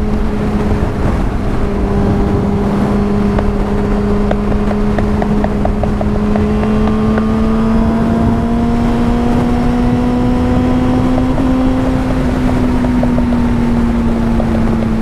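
Yamaha FZ6 inline-four motorcycle engine running at a steady cruise under the rider, with heavy wind and road noise. The engine note climbs slowly over most of the stretch and eases off slightly near the end.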